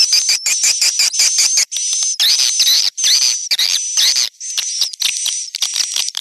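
Edible-nest swiftlet calls, the 'suara panggil walet' lure recording that swiftlet farmers play to draw birds into a nest house. It is a dense, high-pitched chatter of rapid clicking chirps over held whistle-like trills, with a few curving notes in the middle.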